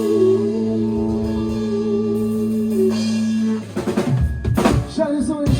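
Live band holding a sustained final chord, then the drum kit playing a closing fill of several loud hits with bass drum and cymbals, the end of the song.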